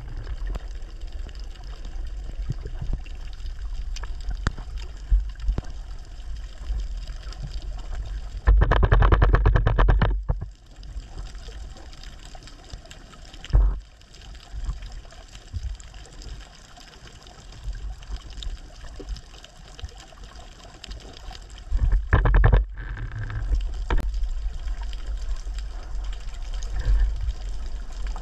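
Underwater ambience recorded by a submerged camera: a steady low rumble with faint scattered clicking. It is broken about eight seconds in by a loud rasping burst lasting nearly two seconds, a sharp knock about halfway, and another short loud burst about two-thirds through.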